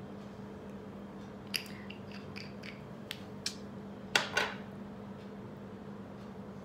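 A few small clicks and taps, then a louder double knock about four seconds in, as a liquid-tint bottle and its brush cap are handled and set down. A steady low hum runs underneath.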